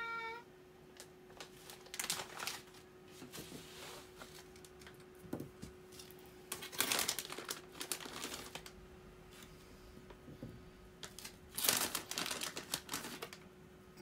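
Plastic snack bag of karintou crinkling in three irregular bursts as it is handled, over a faint steady hum.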